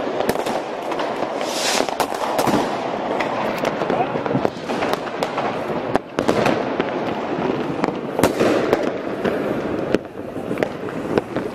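Fireworks and firecrackers going off without pause: a dense, continuous crackle of pops with many sharp, loud bangs standing out.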